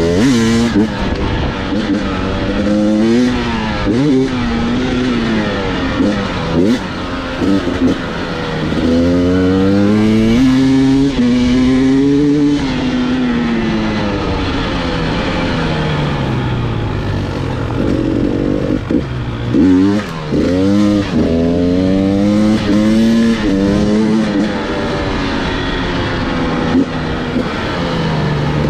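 Beta 250RR two-stroke enduro motorcycle being ridden, its engine revving up and dropping back over and over.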